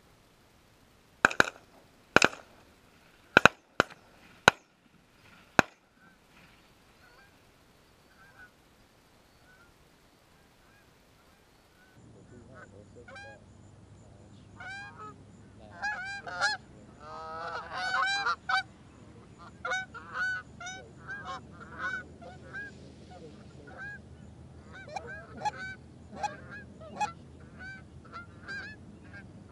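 Canada geese honking, many calls overlapping and repeating. In the first six seconds, about eight short, sharp, loud sounds come before the honking sets in; about twelve seconds in a low steady hum begins under the calls.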